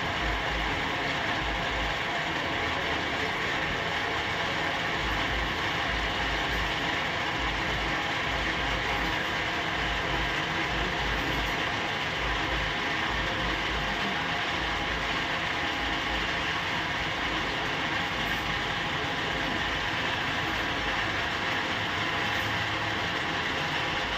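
Metal lathe running steadily through a thread-turning job, an even mechanical running noise with some irregular low thumping underneath.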